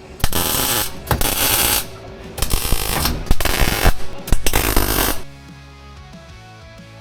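Power tool grinding sheet-steel floor panels during rust repair, most likely an angle grinder. It runs in two long, uneven stretches with a brief drop near two seconds in, then stops about five seconds in, and background music comes back quietly.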